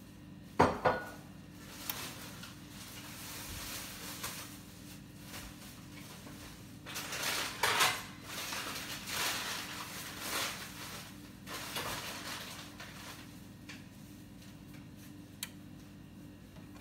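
Kitchen clatter of dishes and utensils: two sharp knocks about half a second in, then several short bouts of clattering noise through the middle, and a single light click near the end.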